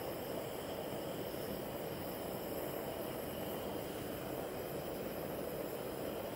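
Propane camp-stove burner running with its flame lit, a steady, even hiss.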